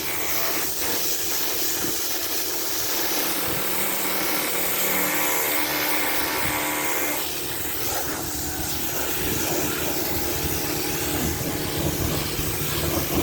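Gas pressure washer running, its engine humming steadily under the hiss of the water jet spraying on the truck's body. The spray's sound shifts about halfway through as the jet moves.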